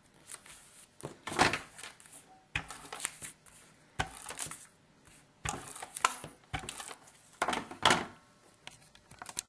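Card stock pieces being handled and an adhesive tape runner drawn across paper in about half a dozen short, scratchy strokes. The strokes are strongest about one and a half seconds in and near the end.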